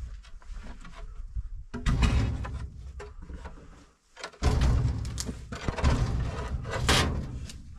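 A sheet of iron being dragged and propped across a doorway: scraping and knocking with a low rumble, in two long stretches, the first about two seconds in and the second from about four and a half seconds.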